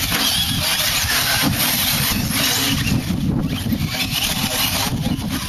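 1/10-scale short course RC trucks racing on a dirt track: motors whining up and down over a dense, steady low rumble.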